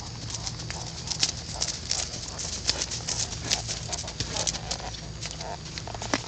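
A horse's hooves on grass and dirt: irregular hoofbeats over a steady low hum.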